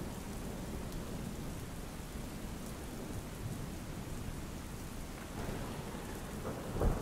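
Rain sound effect: steady rain with low rumbling thunder, and a louder thunder clap near the end.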